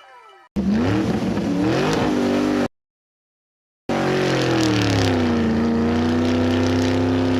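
Two edited-in vehicle engine sound effects separated by a second of dead silence. The first revs up, rising in pitch. The second starts high, drops in pitch and settles into a steady run.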